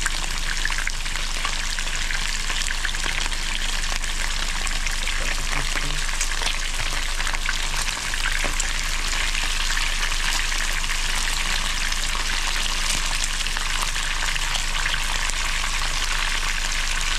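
Small whole mojarras (tilapia) frying in hot oil: a steady, dense crackling sizzle.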